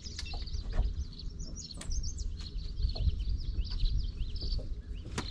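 Small birds chirping, many short overlapping calls, over a low steady rumble, with a sharp click near the end.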